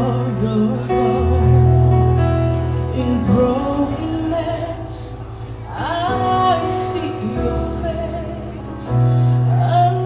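A small vocal group singing a gospel song into microphones, over keyboard accompaniment whose long sustained bass notes change with each chord.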